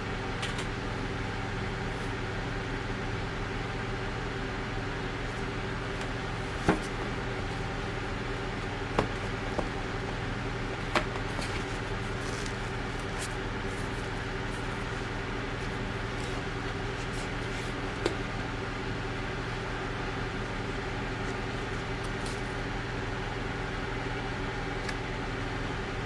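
A steady mechanical hum, even in pitch and level, with a few sharp clicks or taps over it.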